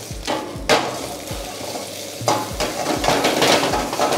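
A steel ladle scraping and knocking around a steel wok as onion, green chilli and chicken pieces fry in hot oil over a gas burner, sizzling. The sizzle gets busier about two seconds in.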